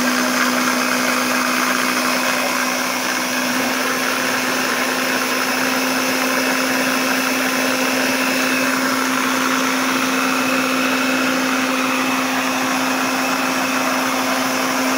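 Countertop blender running steadily at full speed, chopping pieces of fresh coconut in liquid, with an even motor hum under the noise of the churning contents.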